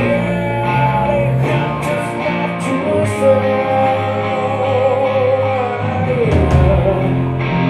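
Live grunge rock band playing: electric guitars, bass and drums, with a voice holding one long note in the middle.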